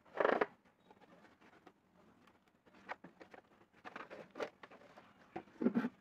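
Hand-work noises on a wet pot form over a basin mould: scattered taps, scrapes and rustles, with a louder burst just after the start and another near the end as the form is tipped and lifted off the basin.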